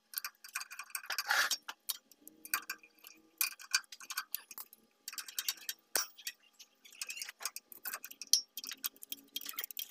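Wrench turning nuts on the brake linkage of a Landini DT85 tractor: quick, uneven runs of sharp metallic clicks.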